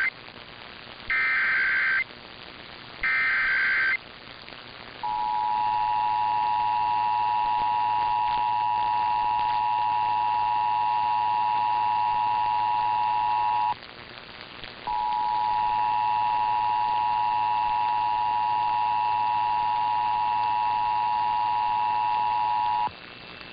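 Emergency Alert System signalling off a broadcast: three short bursts of SAME digital data tones, each about a second long. Then the two-tone EAS attention signal (853 and 960 Hz), held steady for about nine seconds, breaking off for about a second and sounding again for about eight more, over a background hiss.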